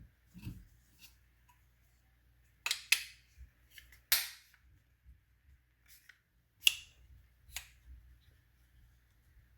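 A handful of sharp plastic clicks and snaps, several seconds apart, from small plastic parts being handled. The two loudest come about three seconds in and near seven seconds.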